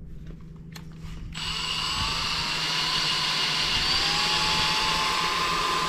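Ryobi 18V One+ cordless drill spinning a 3000-grit dry sanding sponge pad against a plastic headlight lens. It starts about a second and a half in and runs steadily with a whine that rises slightly in pitch, then stops abruptly at the end.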